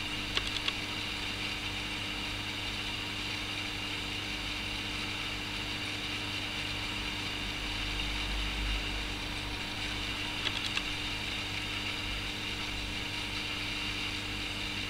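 Steady low hum and hiss of aquarium equipment, with a few faint clicks shortly after the start and again about ten and a half seconds in.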